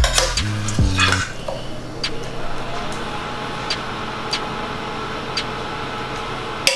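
Background music ends about a second in, leaving a steady hum. Over it come a few scattered light clicks of a metal spoon against a stainless steel frying pan as fried vegetables are spooned out, with a sharper click near the end.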